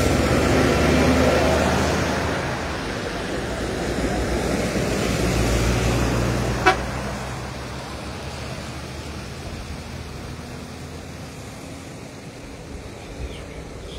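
Scania lorry driving through floodwater close by: diesel engine running and tyres churning and splashing through the water. Another rise of engine sound comes a few seconds in, with a single sharp knock about seven seconds in. The sound then fades to a quieter hum as the trucks move off.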